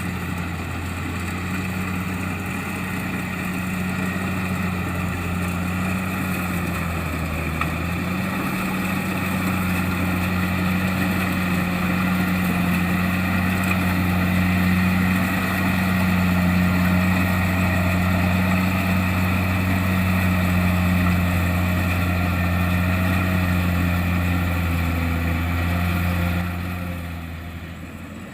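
Kubota DC-70 Plus rice combine harvester's diesel engine running steadily while harvesting. Its pitch dips briefly about a quarter of the way in, and the sound falls away near the end.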